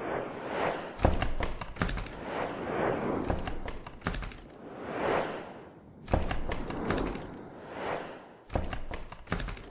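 Swelling whoosh sound effects, one after another, with a sharp hit and a low thump every two to three seconds, as in a slideshow's transition soundtrack.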